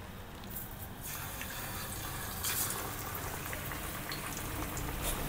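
Besan-battered fish piece sizzling in hot oil in a frying pan. The hiss jumps up about a second in as the piece goes into the oil, then bubbles on steadily.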